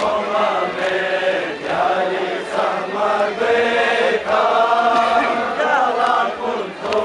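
Massed male voices chanting a Balti noha, a Shia mourning lament, together in unison. Sharp strikes of hands on chests (matam) mark it at intervals.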